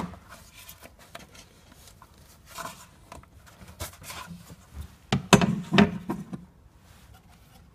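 Plastic knocks and rubbing as the corrugated rubber intake hose is worked off the plastic air filter housing and its cover is lifted away. A few scattered knocks, then a louder cluster of knocks and scraping about five seconds in, lasting about a second.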